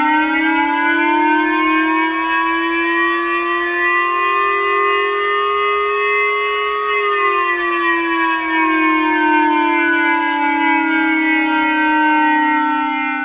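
Japanese J-Alert national civil-protection siren: a loud, sustained electronic wail of two close tones that rises slowly in pitch for about seven seconds and then slowly falls. It is the alert tone Japan uses to warn of an armed attack such as a missile launch.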